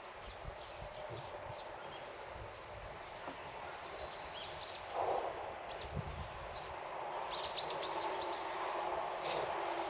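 Small birds chirping outdoors: scattered short, high chirps that sweep downward, with a quick run of several together about three quarters of the way through. A brief louder rustle-like sound comes about halfway, over a steady background hum of the surroundings.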